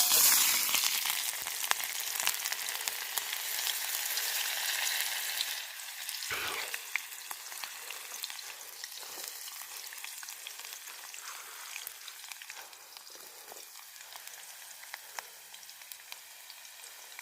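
Chopped onions sizzling in hot oil in a cooking pot, loud as they go in and fading steadily, with crackling pops throughout. A single knock about six seconds in.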